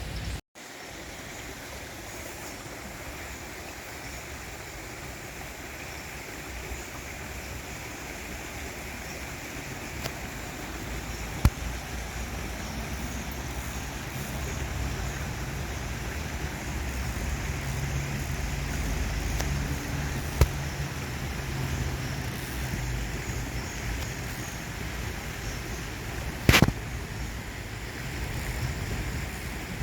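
Steady outdoor rumble and hiss with no clear single source, and a few sharp clicks, the loudest about three-quarters of the way through.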